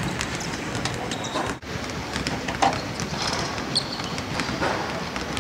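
Basketballs bouncing irregularly on a hardwood court in a large, echoing arena, over a steady hum of the hall; the sound drops out for an instant about a second and a half in.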